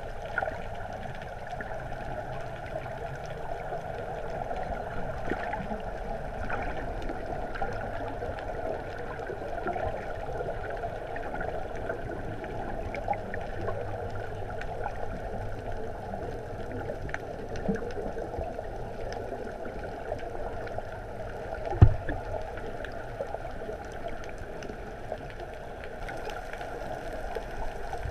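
Muffled underwater ambience: a steady wash of water noise, with one sharp knock about 22 seconds in.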